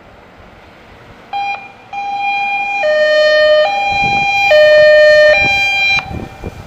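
Dutch fire engine's two-tone siren: a short blast, then a high and a low tone alternating, each held just under a second, getting louder as the truck approaches and cutting off suddenly about six seconds in. The truck's engine rumbles underneath in the second half.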